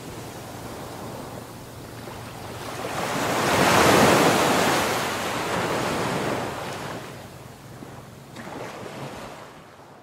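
Sea waves breaking on a shore. A large wave swells to its loudest about four seconds in and washes back over the next few seconds, a smaller wave follows near the end, and the sound fades out.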